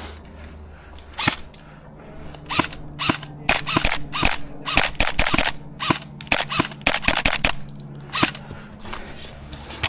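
Airsoft guns firing single shots: about twenty sharp cracks at irregular spacing, coming thickest in the middle of the stretch.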